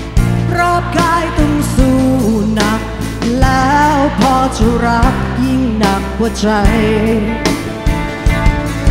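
A woman singing lead vocals over a live rock band, her voice held on long, bending sung notes.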